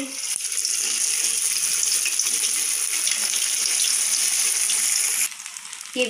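Hot oil sizzling steadily as shaped potato nests deep-fry in a kadhai; it cuts off suddenly about five seconds in.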